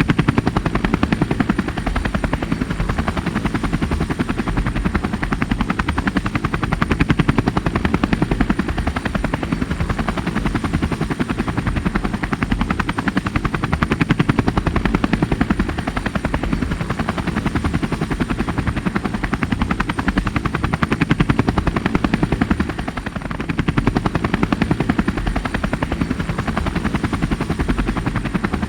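DJI Phantom 3 Standard quadcopter's propellers whirring steadily, the level swelling and easing slightly every few seconds.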